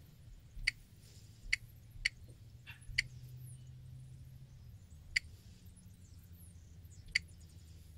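Six or so short, sharp, high-pitched clicks at irregular intervals over a steady low background hum.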